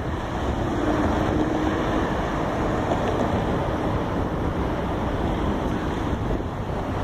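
Wind buffeting the microphone, a steady low rumble over street traffic noise, with a faint hum briefly about a second in.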